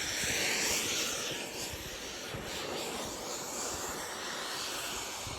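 Kerosene-burning turbine engine of an RC model jet, a steady rushing hiss that swells and fades slightly as the jet flies.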